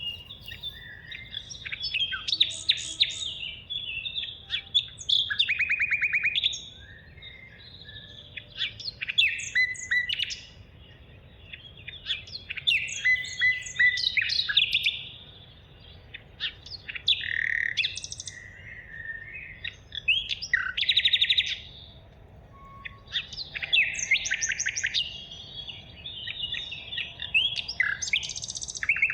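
Songbirds singing: short phrases of rapid chirps and trills, one to two seconds long, coming every few seconds with brief pauses between.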